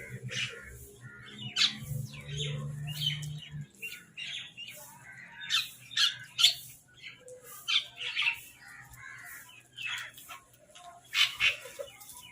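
Several crows calling in a flurry of short, harsh squawks and caws that overlap one another, as birds squabbling over food. A low steady hum underneath stops a few seconds in.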